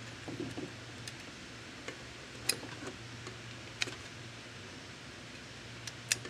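A handful of small sharp clicks and light rustling of wires as wire-harness plastic connectors are handled and pressed onto the circuit board of a Coinco Mag bill validator, over a faint steady low hum.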